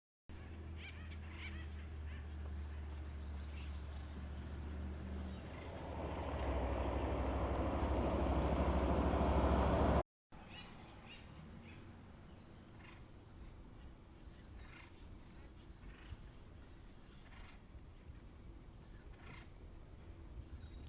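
For about ten seconds a low steady hum grows into a loud rushing noise, then cuts off abruptly. After that, birds give short, scattered calls over quiet outdoor background.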